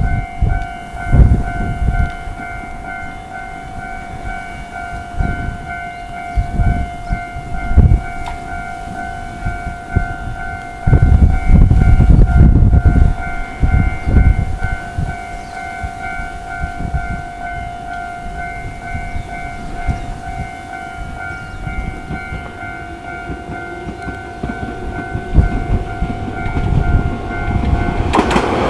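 Japanese railway level-crossing warning bell ringing in a steady repeating tone, with intermittent low rumbles underneath; near the end the bell stops and a louder train noise rises.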